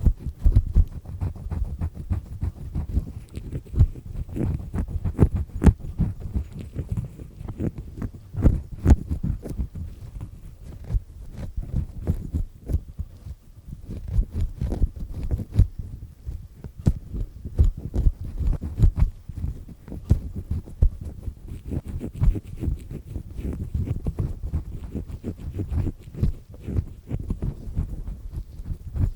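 Earpick with a black triple-disc head scraping inside an ear canal, very close to the microphone. A continuous, irregular run of low, muffled rubbing and crunching scrapes with sharp little clicks, as it grinds at and peels away earwax.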